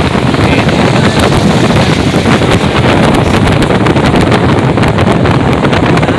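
Wind rushing over the microphone and road noise from a car driving at speed on a wet road: a loud, steady rush with frequent crackles.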